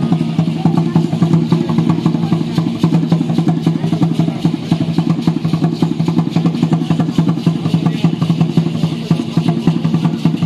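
Aztec (Mexica) dance music: fast, dense drumming and rattling from the dancers' percussion and ankle rattles, over a steady low hum.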